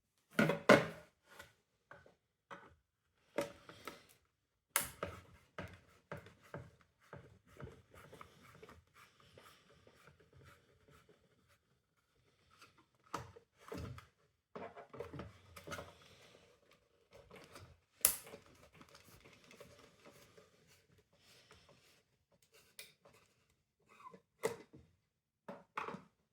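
Plastic housing and parts of a window vacuum cleaner being handled and taken apart: irregular sharp clicks and knocks with scraping and rubbing in between.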